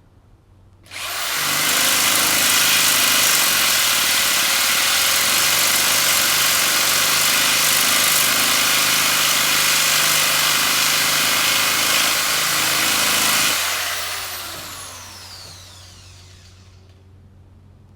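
Electric power sander switched on about a second in, running steadily while sanding a chainsaw part to fit. Near the end it is switched off and winds down with a falling whine.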